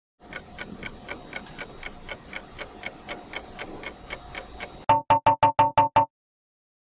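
Countdown timer sound effect: a clock ticking about four times a second, then a quick run of seven loud electronic beeps as time runs out.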